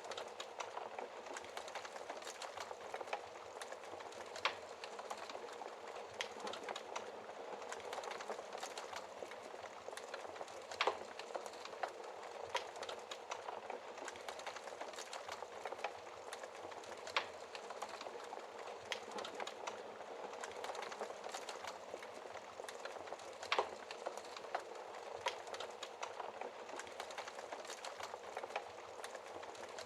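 Wood fire crackling in a fireplace: a steady hiss of small crackles, with a louder pop about every six seconds.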